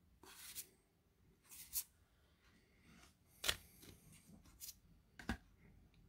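Trading cards slid one by one off a hand-held stack: a handful of short, papery swishes and flicks, the sharpest about three and a half seconds in.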